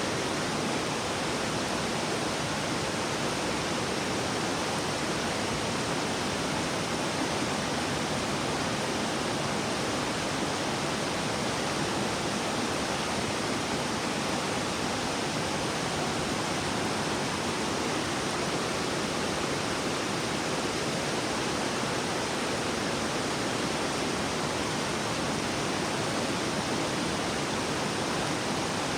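River water rushing and burbling over rocks, a steady, even rush without a break.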